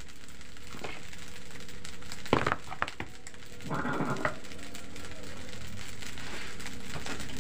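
Fried rice sizzling steadily in a large aluminium wok, slowly getting louder, with a few sharp knocks of a utensil on a stone mortar about two and a half seconds in and a short scrape about four seconds in.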